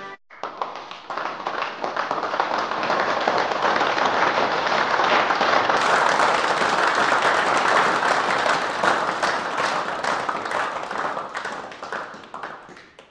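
Applause: many hands clapping together, swelling over the first couple of seconds, then fading away near the end.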